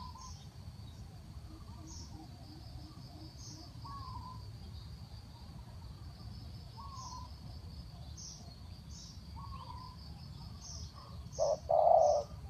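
Spotted dove cooing: a few loud low coos come near the end. Before that there are only faint high chirps repeating about once a second over a low background hum.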